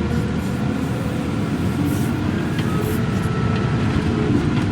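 Heavy equipment engine running steadily, a constant low machine noise with faint steady tones above it.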